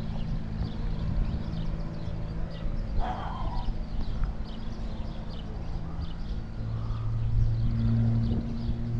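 A steady low engine hum that swells from about two-thirds of the way through, with faint high chirps repeating over it and a brief louder sound about three seconds in.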